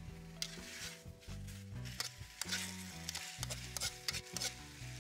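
A metal ladle stirs and scrapes chunks of sweetcorn in sauce around a steel wok, with irregular scrapes and clicks over the sizzle of the frying food.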